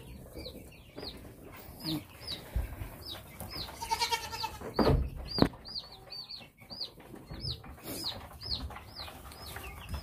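A group of young Cornish cross meat chicks peeping over and over, short high chirps several a second. A goat bleats once briefly about four seconds in, and there are a couple of low knocks around five seconds.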